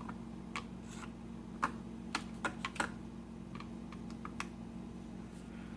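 Keys being tapped: about a dozen irregular, sharp clicks, over a faint steady low hum.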